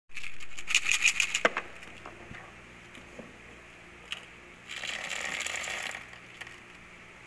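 A scatter of sharp clicks and taps in the first second and a half, then a little past the middle about a second of rattling as candy-coated chocolates pour from a plastic bottle into a small cardboard tray.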